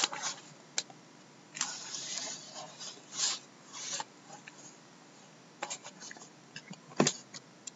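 A shrink-wrapped cardboard box is handled and slid back into a cardboard case. There are short scraping and rubbing bursts of cardboard and plastic wrap, then a few light knocks, the sharpest about seven seconds in.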